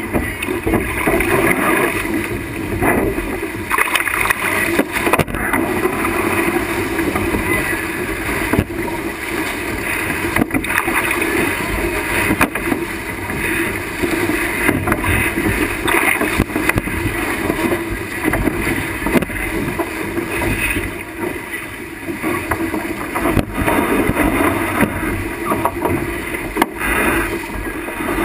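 Sailboat driving hard through rough seas: a loud, constant rush of water and spray along the hull and over the deck, with wind buffeting the microphone and scattered short slaps of waves and spray striking the boat.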